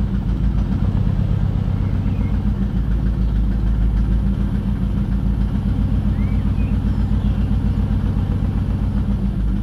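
Turbocharged Saab 9-3 engine idling steadily, heard from inside the cabin, with an even low pulsing and no change in speed.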